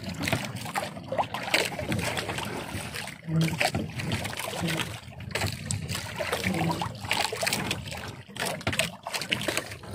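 Water sloshing and trickling around a small wooden outrigger fishing boat. Irregular clicks and rustles come from a wet gill net being handled as fish are worked free of it by hand.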